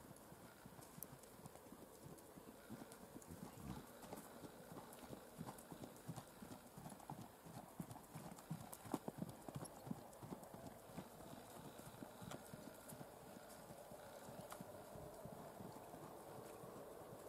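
Hoofbeats of a gaited mare being ridden on a soft dirt arena: quick, even, faint footfalls, loudest midway as she passes nearest.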